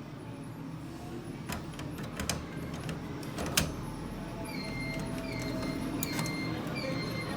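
Hands handling a plastic inkjet print head and its packaging, with a few sharp plastic clicks about a second and a half, two and three and a half seconds in. From about halfway a faint, short high chirp repeats regularly behind it.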